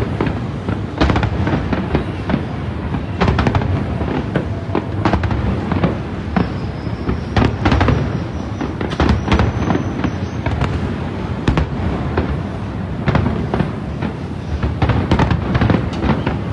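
Aerial firework shells bursting: a rapid, irregular string of bangs over a steady low rumble.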